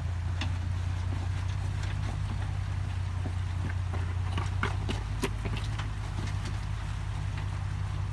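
Supercharged Toyota Tacoma's engine running at low, steady revs, with scattered clicks and crunches, most of them about four to six seconds in.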